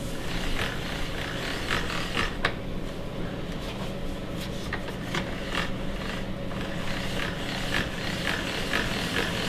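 Soft, irregular scrapes and light taps from fresh egg noodles and dough being handled on a kitchen work surface, over a steady low hum.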